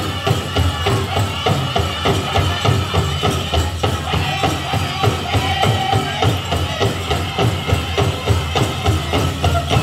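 Powwow drum group singing a chicken dance song to a steady beat on a large shared drum, with dancers' bells jingling.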